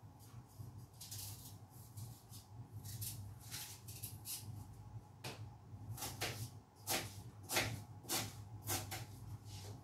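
Knife cutting through food onto a plastic cutting board: a series of irregular cutting strokes, sparse at first and louder and closer together in the second half, over a steady low hum.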